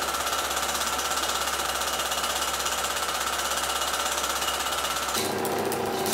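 Rapid, even mechanical clattering like a running film projector, laid down as a rhythmic soundtrack. A little after five seconds the low rumble underneath drops out while the clatter goes on.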